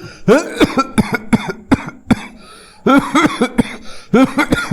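A person coughing over and over in quick fits of several hacking coughs each, with a brief pause a little past the middle.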